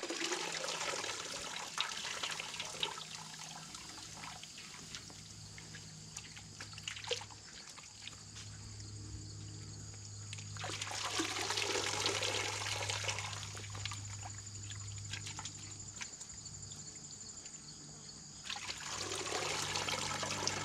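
Water sloshing and trickling as a chicken carcass is dunked and swirled in a pot of scalding water, the step that loosens the feathers for plucking. The sloshing grows louder twice, about eleven seconds in and again near the end.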